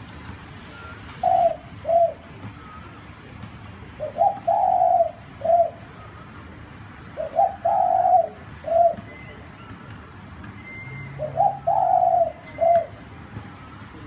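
A dove cooing: four phrases a few seconds apart, most of them a short note, a longer one and a short one. Faint chirps of small birds sit in the background.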